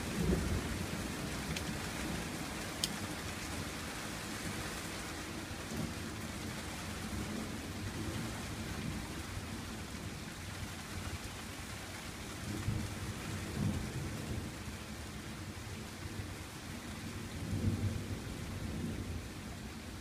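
Thunderstorm: steady rain hissing, with low thunder rumbling in several swells. One comes right at the start, more come in the second half, and the last is near the end.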